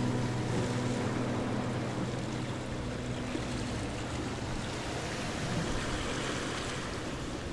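Steady rushing wind buffeting the microphone outdoors, with the last low notes of background music fading out in the first few seconds.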